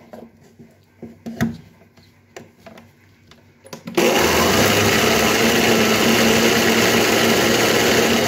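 A few scattered knocks, then about halfway through an electric mixer grinder (mixie) switches on abruptly and runs steadily at full speed, blending a thick banana and chocolate ice cream mixture.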